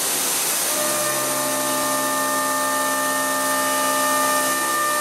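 Ceramic-insert shell mill face-milling an Inconel 718 block on a Hwacheon M4-5AX 5-axis machining center: a steady high hiss, joined less than a second in by a steady whine of several tones as the cutter engages the metal.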